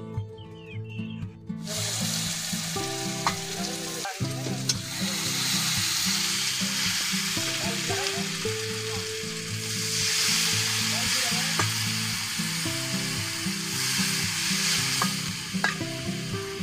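Hot oil and spices sizzling in a karahi (wok) on a wood-fired clay stove, beginning about two seconds in, with a few light ladle clicks against the pan. Background music with a low repeating melody plays underneath.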